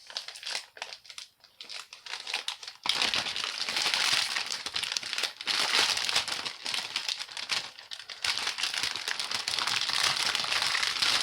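Crinkly plastic packaging being handled and pulled open, a few light rustles at first, then loud continuous crackling from about three seconds in.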